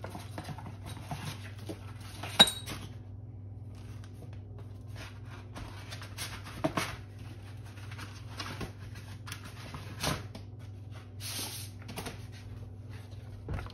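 Scattered light taps, clicks and brief rubbing on a glass plate being cleared between sandpaper sheets, with one sharper click about two and a half seconds in.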